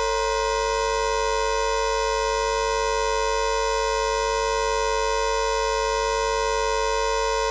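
Steady synthesized electronic tone, a few low pitches held unchanged with a buzzy edge: the audio signal of an oscilloscope animation, whose waveform draws the picture on the screen.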